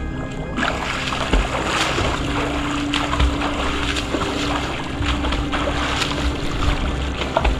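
Wind on the microphone and lapping lake water, under steady background music; a held note comes in about two seconds in.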